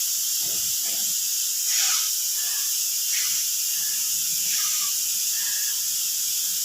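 A steady high hiss with a few faint, brief small sounds over it.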